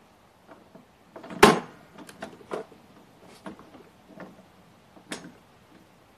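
Knocks and clatters from handling the parts and packaging of a new battery lawn mower: one sharp loud knock about a second and a half in, then several lighter knocks over the next few seconds.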